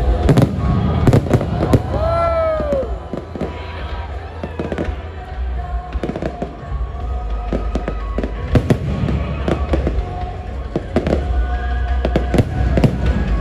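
Aerial fireworks shells bursting overhead in an irregular run of sharp bangs, with music and voices underneath.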